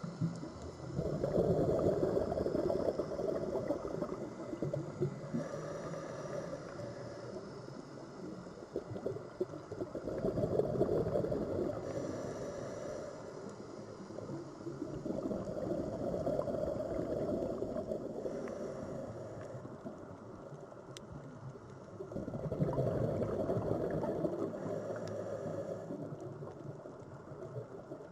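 Sea waves washing in, each one swelling up and dying away; four surges, several seconds apart.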